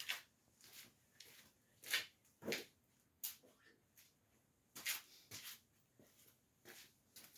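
Scattered short rustles, light clicks and knocks, about a dozen, irregularly spaced: small screws and their packaging being opened and handled, with tools being picked up.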